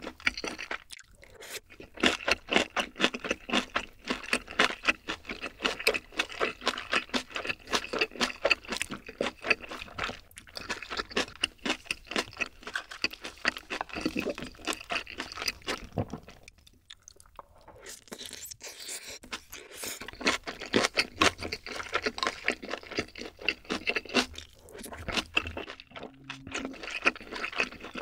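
Close-miked eating of kimchi and soy-sauce egg rice: quick, dense crunching and wet chewing, with a short pause about two-thirds of the way through.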